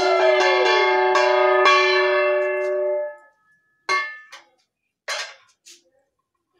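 Conch shell (shankha) blown in a long, loud, steady note, with a small hand bell rung about three times a second over it; the note sags in pitch and stops about three seconds in. Two short conch blasts follow, near four and five seconds in.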